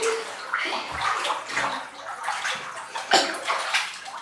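Bathtub water splashing and sloshing as a child lies down and moves around in it, in irregular splashes with the loudest about three seconds in.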